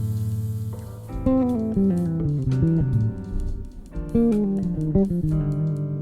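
Instrumental band music: a guitar plays quick melodic runs, mostly falling, over electric bass, with light cymbal ticks.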